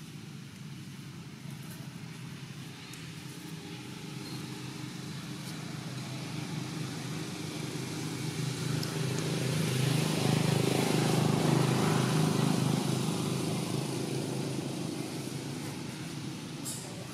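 A vehicle's engine passing by: a steady hum that slowly swells, is loudest about two-thirds of the way through, and then fades away.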